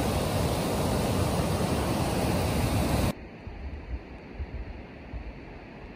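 Rushing water of a small forest waterfall and stream rapids, loud and steady, cutting off abruptly about three seconds in to a much quieter low rumble.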